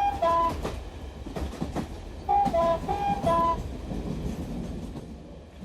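A train running along the track with a clattering rhythm. Its two-tone horn gives short alternating toots right at the start and again in a run of four about two seconds in.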